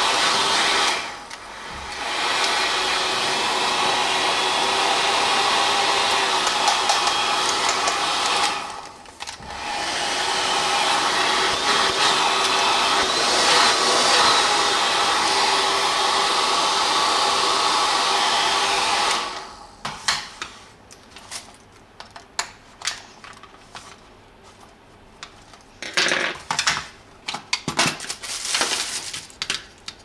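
A repaired red Nobby hair dryer running with a steady blowing hum, cutting out briefly twice in the first ten seconds and stopping for good about two-thirds of the way through. After that come scattered clicks and knocks of plastic dryer parts being handled.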